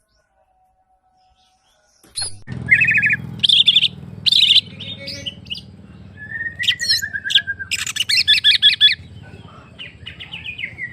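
Green leafbird (cucak ijo) singing loudly after a short silence, in fast rattling trills and varied phrases, with one long, slightly falling note midway. A low steady hum runs under the song.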